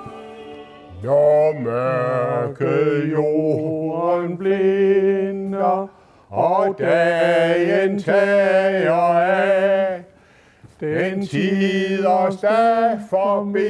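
A man singing a Danish night watchman's verse unaccompanied, in long held notes with a slight waver. He pauses for breath between phrases about six and ten seconds in.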